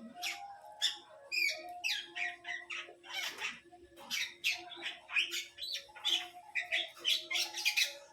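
Many quick, high-pitched bird-like chirps and squeaks, repeated irregularly, over two faint steady hums.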